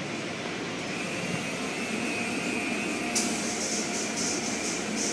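Automatic tunnel car wash heard from inside the car: a steady rumble of the wash machinery and brushes working over the car. About three seconds in, a high pulsing hiss of water spray on the car begins.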